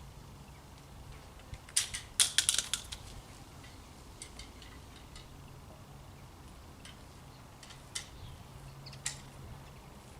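A reproduction medieval crossbow being shot: a sharp snap about two seconds in, followed at once by a quick run of rattling clicks and clatters, then two faint clicks near the end.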